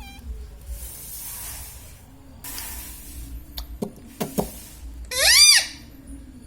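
Indian ringneck parrot giving one loud squawk that rises and falls, about five seconds in, after two breathy hiss-like noises and a few sharp clicks.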